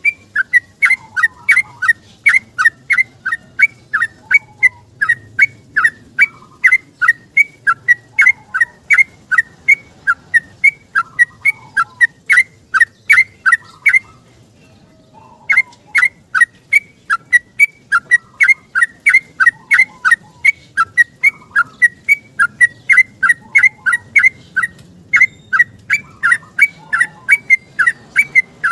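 Yellow-vented bulbul (trucuk) singing a long, rapid run of short, sharp whistled notes, about three to four a second, with a brief pause near the middle.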